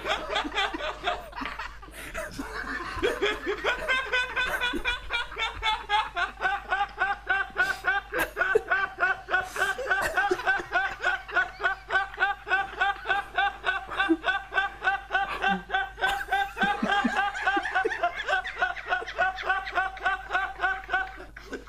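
A man laughing hard: after some broken laughter at the start, a long unbroken run of rapid, high-pitched 'ha' pulses, several a second, that stops shortly before the end.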